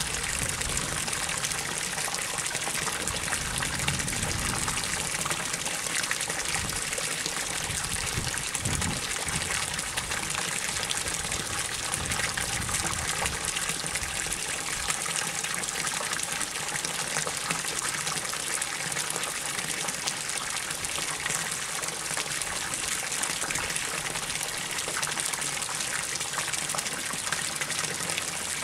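A steady stream of water pouring from a pipe into a pond, splashing and gushing onto the surface.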